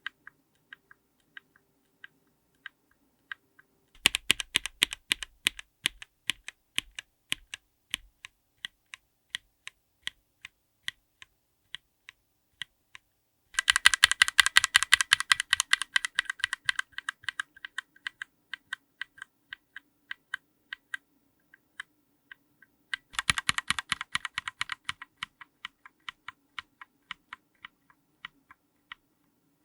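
Linear mechanical keyboard switches under GMK keycaps, recorded close up: single keystrokes about a second apart, broken by three bursts of rapid typing.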